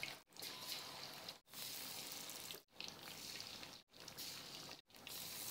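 Flour-coated chicken wings deep-frying in hot oil in a wok: a faint, steady sizzle. It is broken by short silent gaps about once a second.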